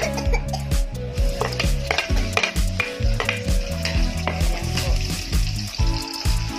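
Chopped onions sizzling as they hit hot oil with garlic in a wok, a spatula scraping and clicking against the pan again and again as they are stirred.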